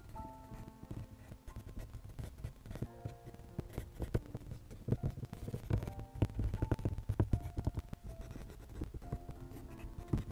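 Colored pencil scratching across paper in many quick, short shading strokes, over background music with held notes.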